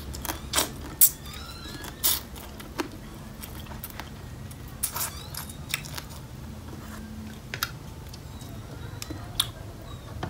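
Close-up eating sounds: sharp sucks, smacks and cracks of blue crab pieces from a spicy green papaya salad being sucked and bitten, scattered every second or so, the loudest about a second in, over a low steady rumble.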